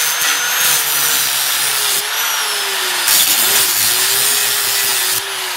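Angle grinder cutting a notch into welded steel: a steady motor whine that dips in pitch as the disc bites under load, over a strong hiss of the cut that swells about three seconds in.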